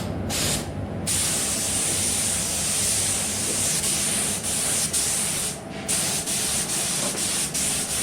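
Compressed-air paint spray gun hissing as it sprays, cutting out briefly twice in the first second and once a little before six seconds in.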